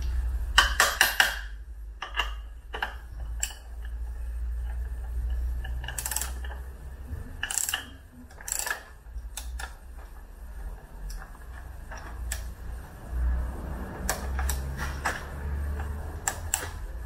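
Ratchet wrench clicking, in quick runs and single clicks, as a cap-type filter wrench snugs a new spin-on oil filter onto a four-stroke outboard engine, over a steady low hum.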